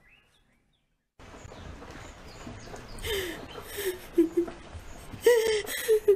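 About a second of near silence, then steady outdoor background noise. Over it come a few short, wavering vocal sounds, clustered toward the end.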